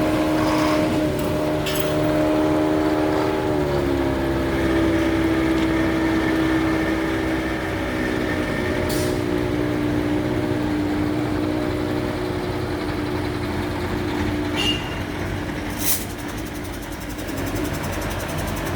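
Heavy engine of a jet-patching road-repair machine running with a steady drone, its pitch stepping down a little about three and a half seconds in, with a few short sharp clicks over it.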